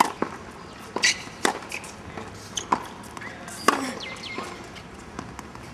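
Tennis balls struck by racquets and bouncing on a hard court during a rally drill: a series of sharp pops at irregular intervals, about six in all.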